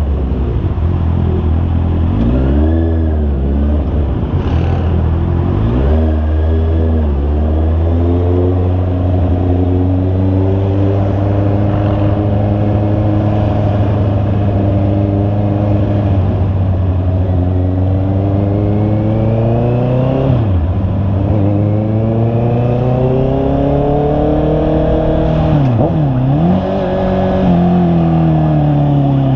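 Honda CB650R's inline-four engine running under way, its revs dropping sharply and climbing again several times, with steadier running in between.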